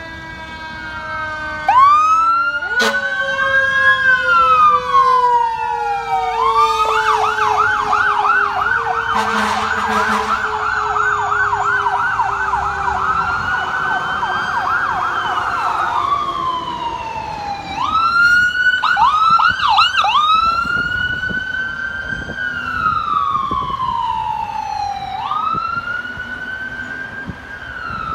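Fire engine and ambulance sirens sounding together as they respond, loud and overlapping. The sirens glide slowly up and down in a wail, switch to a rapid yelp from about six seconds in until about sixteen seconds, yelp again briefly around eighteen to twenty seconds, then go back to the wail.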